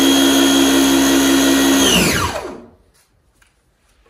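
Small electric pressure washer running under load, its motor and pump whining steadily over the hiss of the spray. About two seconds in it cuts out as the gun trigger is let go, the whine falling in pitch as the motor spins down to a stop, followed by a few faint clicks.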